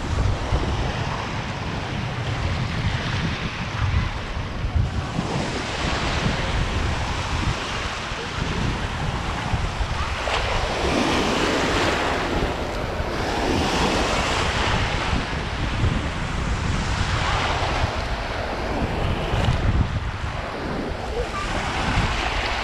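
Shallow sea water washing and surging in swells every few seconds, with a steady rumble of wind buffeting the microphone.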